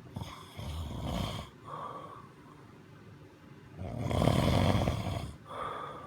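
Snoring: two loud, rough snores about three seconds apart, each a long breath in followed by a shorter, quieter breath out. The second snore is the loudest.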